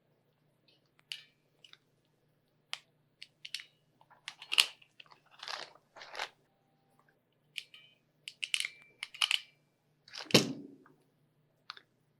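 Self-adjusting ratchet crimping tool squeezing wire end ferrules onto wires, three connections in turn. Short crunching squeezes and ratchet clicks as the jaws close and spring open, with light handling clicks in between. The loudest crunch comes near the end.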